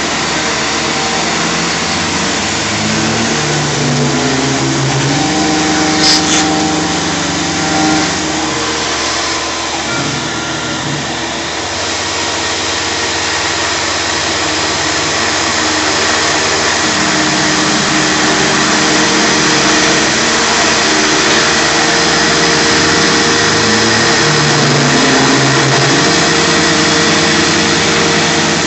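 Shop vacuum running steadily while a CNC mill cuts a UHMW polyethylene disc. Under the vacuum, the machine's motors hum at pitches that step up and down every few seconds as the cutter moves through the pattern, and a single sharp tick comes about six seconds in.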